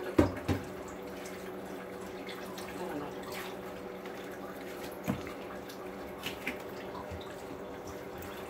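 Kitchen work sounds: a few sharp knocks and clinks of utensils and cookware, two close together just after the start and more about five and six seconds in, over a steady electric hum.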